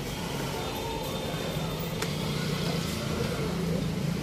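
Steady low din of a busy shop, with faint indistinct voices in the background and a single sharp click about two seconds in.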